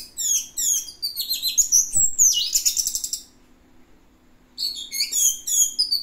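Orange-headed thrush singing a rapid, varied run of high chirps and twitters. It breaks off a little past three seconds in and starts again near the end.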